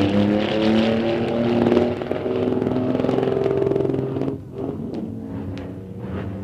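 Drag-racing car engine running at high revs with a rasping, slightly wavering pitch. It drops in level about four seconds in.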